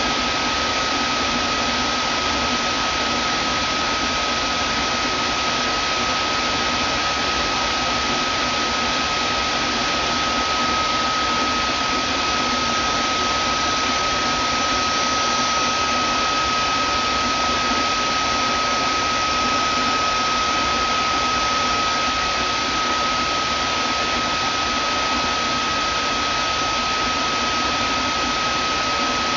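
Vacuum cleaner motor running steadily: an even noise with one constant high-pitched whine running through it.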